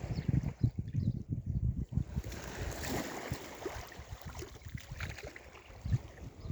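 Sea waves washing on the shore, one wave rushing in with a swelling hiss about two seconds in and fading over the next two seconds, over a gusty low rumble of wind on the microphone.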